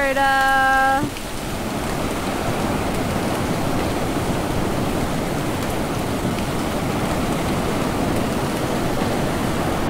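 Ocean surf breaking and washing up a sandy beach, a steady rushing hiss. A held pitched note cuts off about a second in.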